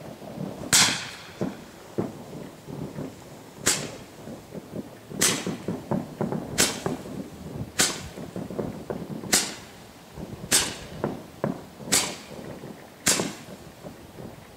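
A neon Roman candle firing its stars one after another: nine sharp pops, mostly about a second and a half apart. The first pop trails a longer hiss.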